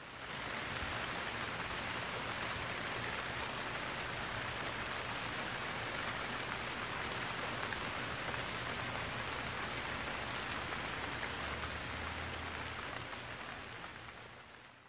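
Steady rain falling, a soft even hiss that fades in at the start and fades out near the end.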